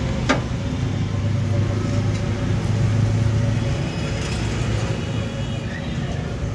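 Steady low hum of a motor vehicle running nearby, swelling slightly in the middle, with one sharp click about a third of a second in.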